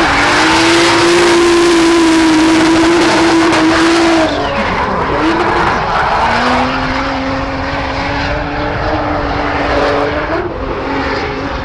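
Turbocharged BMW M54B30 3.0-litre straight-six held at high revs for about four seconds, then easing off and running at a steady lower pitch, changing again near the end.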